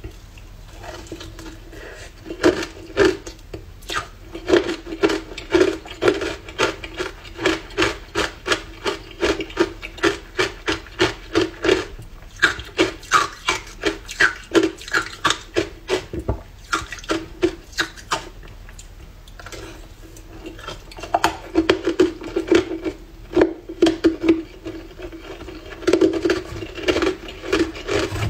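Hard ice coated in matcha powder being chewed up close, a run of sharp crunches about two to three a second, broken by short pauses and a lull of a few seconds midway.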